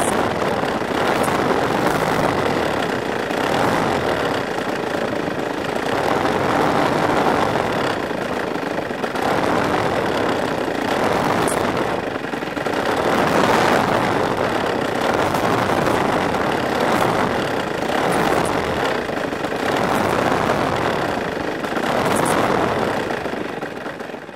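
Two-stroke Husqvarna chainsaw engine converted to power a giant-scale RC airplane, running close up as the plane taxis, its loudness swelling and easing every few seconds.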